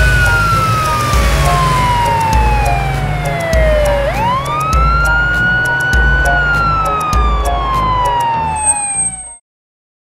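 Police siren wailing: a long slow falling tone, a quick rise about four seconds in, then another slow fall, over background music with a steady beat. Everything cuts off abruptly shortly before the end.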